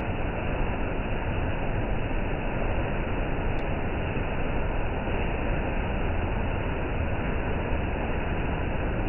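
Heavy monsoon rain falling steadily: a constant, even hiss of a downpour.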